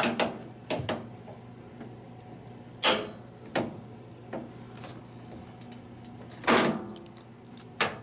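Locking pliers clamping and twisting a security screw in a microwave's sheet-metal case: a series of sharp metal clicks and scrapes. The loudest come about three seconds in and again about six and a half seconds in.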